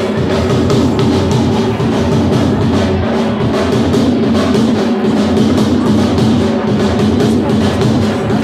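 Dhol drums beating a steady festive rhythm over music with a couple of held notes.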